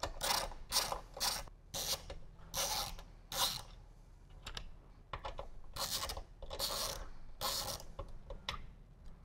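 Socket ratchet clicking in repeated short strokes, about two a second, as the ECM's half-inch bolts are loosened. There is a brief lull about four seconds in.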